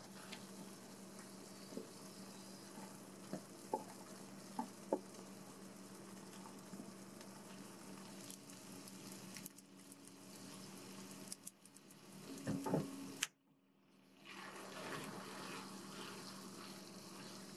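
Tomato sauce simmering and sizzling quietly in a frying pan, with a few light taps and clicks as long chopsticks stir it, over a steady low hum. The sound breaks off briefly about two-thirds through, then resumes.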